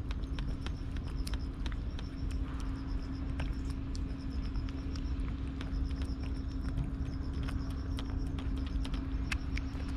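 A cat chewing dry food: a run of irregular crisp crunching clicks.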